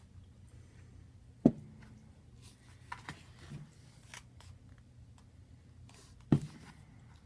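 Two sharp knocks on a tabletop, about five seconds apart, with fainter clicks and scrapes between them, as a paper bowl of pasta is handled and set back down.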